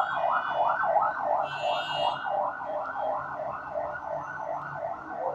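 Electronic siren sounding in a fast yelp pattern, its pitch sweeping up over and over, about three times a second.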